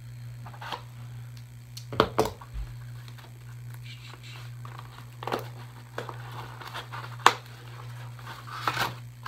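Cardboard shipping box being cut open with a knife and its flaps worked open by hand: scattered scrapes, rustles and clicks, the sharpest click about seven seconds in. A steady low hum runs underneath.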